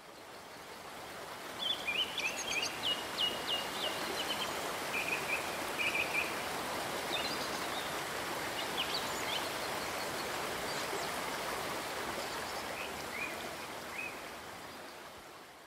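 Birds chirping and trilling over a steady rushing outdoor background like running water. It fades in at the start and out at the end, with the bird calls busiest in the first few seconds.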